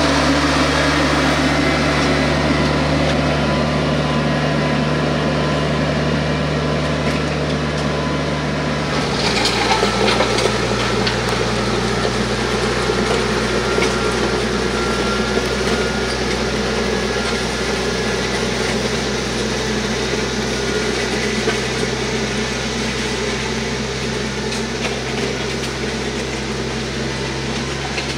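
TYM T474 compact tractor's diesel engine running steadily under load while it drags a land plane through loose dirt, with the scrape of soil under the blades. The engine note shifts suddenly about nine seconds in.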